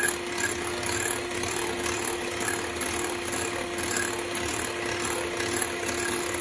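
Electric hand mixer running at a steady speed, its beaters whipping chilled cream in a glass bowl as it thickens.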